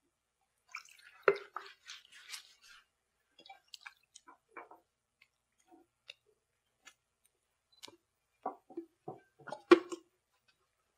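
Scattered small drips and splashes of water in a clay basin and the wet squish of a towel as feet are washed, with soft knocks here and there; the sharpest knock comes near the end.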